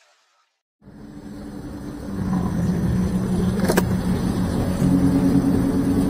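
A motor scooter's engine running at low speed in dense traffic, with other motorbikes and cars around it. The sound comes in about a second in, after a brief silence. There is a single sharp click a little past the middle.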